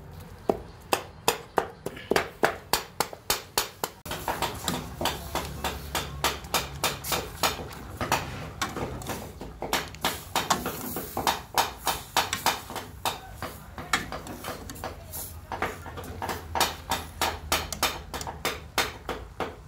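Two knives chopping rapidly on a chopping board, mincing pork, about three sharp chops a second. About four seconds in it gives way to a metal ladle stirring meat in a stainless steel pot, knocking and scraping the pot in a steady rhythm over a low background hiss.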